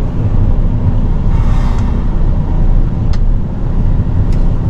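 Mercedes-Benz Actros SLT heavy-haul truck's diesel engine heard from inside the cab, running with a steady low rumble as the truck creeps forward. A brief hiss comes about a second and a half in.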